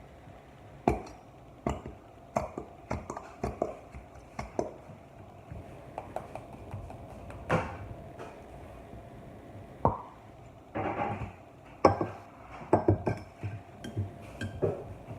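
Irregular light knocks and clinks of a glue bottle and bowl being handled while glue is put into the bowl, with a short rustling scrape about eleven seconds in.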